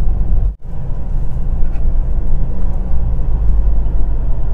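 Steady low rumble of road and engine noise inside a moving car's cabin. It drops out for an instant about half a second in.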